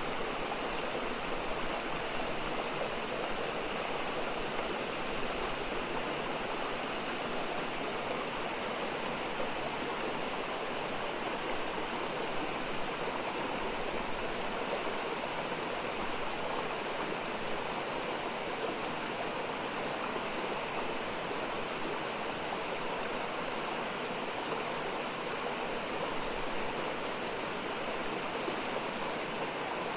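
Mountain stream water flowing and splashing over rocks, a steady, unbroken rush.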